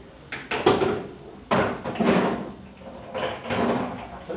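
Pool balls knocking and clacking against each other and the wooden sinuca table: a string of sharp knocks, the loudest about half a second and a second and a half in.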